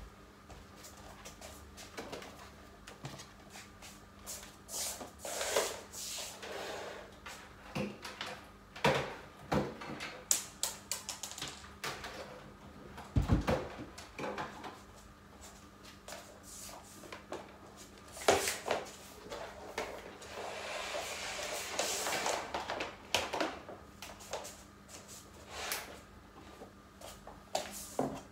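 Objects being handled and set down while a room is tidied: scattered knocks, clatters and rustling, with a heavier thump about thirteen seconds in and a longer stretch of rustling around twenty seconds in. A faint steady hum runs underneath.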